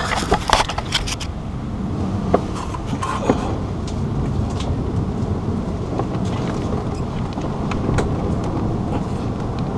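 Steady low background rumble, with a few faint clicks about two, three and eight seconds in as hands work among the engine-bay parts.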